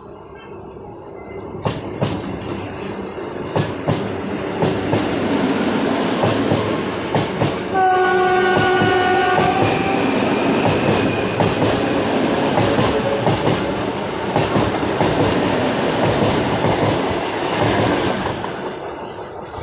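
Eight-car Vande Bharat Express electric train passing close by, its rumble building with wheels clicking over rail joints. Its horn sounds for about two seconds midway, and the noise falls away near the end.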